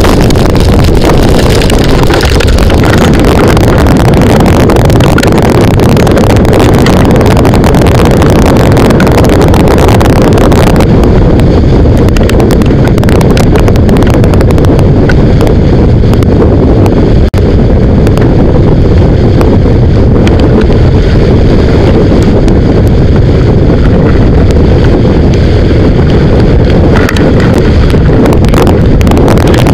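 Tornado wind buffeting an exterior-mounted camera's microphone: a loud, continuous rumble, with a higher hiss over it that drops away about eleven seconds in as the gusts ease.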